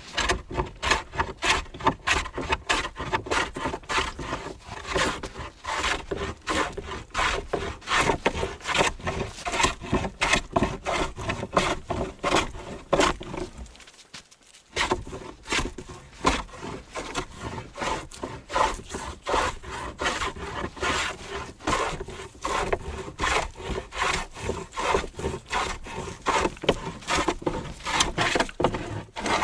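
Hand plane shaving a rough chainsaw-milled board in quick repeated strokes, with one short pause about halfway through.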